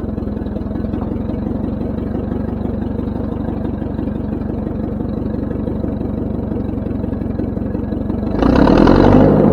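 Ford 9N tractor's four-cylinder flathead engine running steadily as the tractor drives under its own power, with a louder burst of rushing noise for about a second near the end.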